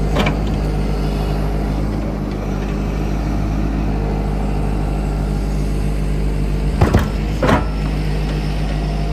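Excavator's diesel engine running steadily under load, with sharp knocks just after the start and twice about seven seconds in.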